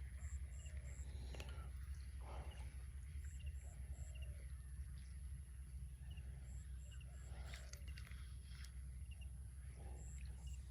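A wild animal's high, thin call of three or four short pips, repeated about every three seconds, over a low steady rumble.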